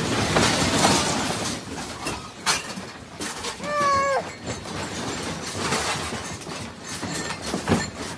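Furniture and household objects rattling and clattering as an apartment room shakes in an earthquake, with several sharper knocks. About four seconds in comes one short cry that bends down at the end.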